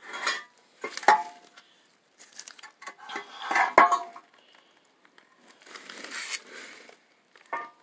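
Metal clanks and scraping as a catalytic converter's flange is pushed and shifted against the exhaust manifold to line up the bolt holes: two sharp clanks with a brief ring, about a second in and near the middle, between stretches of scraping.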